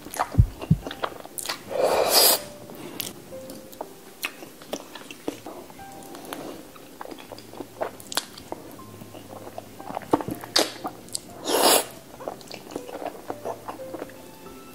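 Close-up mouth sounds of eating creamy alfredo pasta: two loud slurps of noodles, about two seconds in and again near the end, with wet chewing and small clicks in between. Light background music plays underneath.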